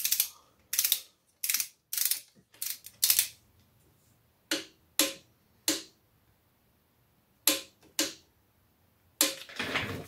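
Ratchet wrench turning a plug on the Audi A4 B7's manual transmission, about a dozen short clicking strokes in uneven groups, with a longer run of clicking near the end.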